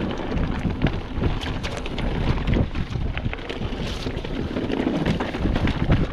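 Wind buffeting a mountain biker's body-mounted camera microphone while the bike rolls over a rocky trail, with a steady rumble and many small knocks and rattles from the tyres and bike on the stones.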